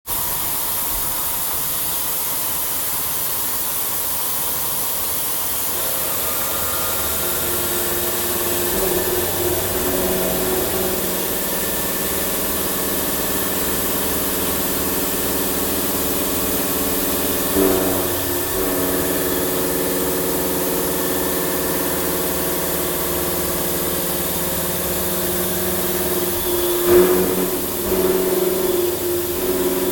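Deckel FP50CC CNC milling machine face milling with a 63 mm Mitsubishi face mill turning at 1100 rpm and feeding at 2200 mm/min. A steady hiss runs throughout, a set of steady humming tones comes in about six seconds in, and the cut grows briefly louder about 18 and 27 seconds in.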